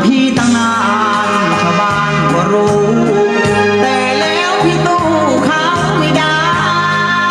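Song played back from cassette tape on a Yamaha KX-530 stereo cassette deck: a Thai song with a singing voice over a repeating bass line.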